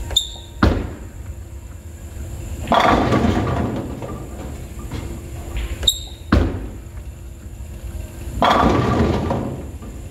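Two bowling deliveries. Each time the ball lands on the lane with a thud and rolls, then about two seconds later crashes into AMFlite II pins on a Qubica AMF Edge string pinspotter, a clatter lasting about a second.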